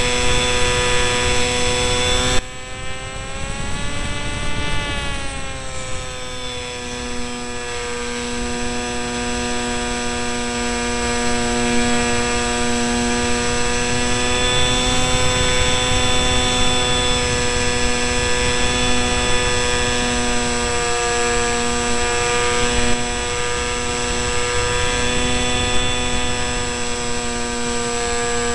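Electric motor and propeller of an RC delta-wing model heard from a camera on board: a steady whine made of several pitched tones, over wind rush. About two seconds in the level drops abruptly, the pitch swells and dips, then it runs steadily again.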